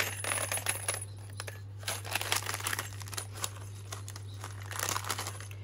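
Small white paper bag rustling and crinkling as it is handled and folded shut, in three bursts, with light clicks from the small metal jingle bells inside it.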